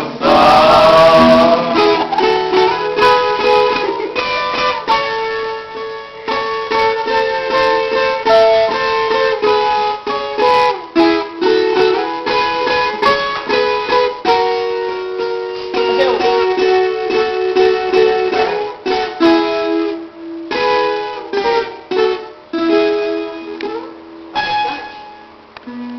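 Acoustic plucked-string instrument playing the instrumental close of a Brazilian sertanejo song, a busy run of picked notes that softens near the end.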